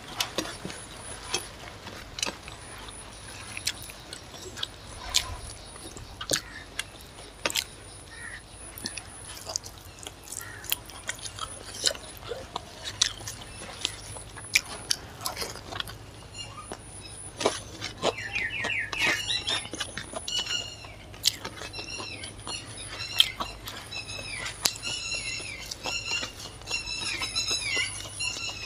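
Chewing and small mouth clicks of someone eating rice and chicken curry by hand, in short sharp clicks throughout. From about two-thirds of the way in, small birds chirp over and over in the background.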